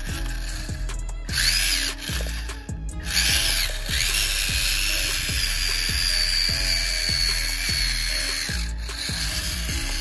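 The high whine of a remote-control model tractor's small electric drive motor as it drives through mud, swooping up and down a couple of times before holding steady, over background music with an even beat.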